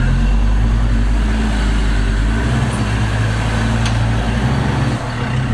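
Off-road 4x4's engine pulling steadily under load as the jeep crawls up a steep rutted dirt climb, the engine note rising about halfway through and easing slightly near the end.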